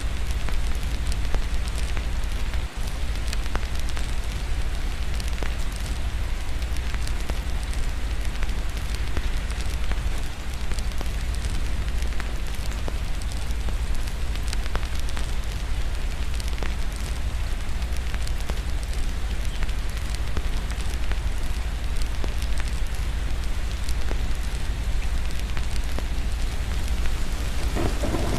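Fireplace crackling with many small pops over steady rain and a constant low rumble. A roll of thunder begins right at the end.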